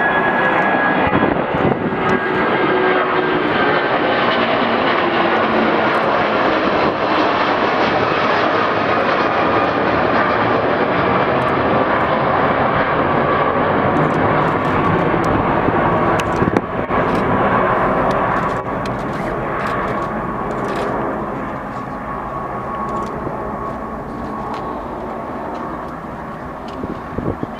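Twin Rolls-Royce Trent 700 turbofans of an RAF Airbus A330 Voyager KC2 at takeoff thrust: a loud, dense jet noise with whining fan tones that slowly drop in pitch. It gradually fades over the second half as the aircraft climbs away.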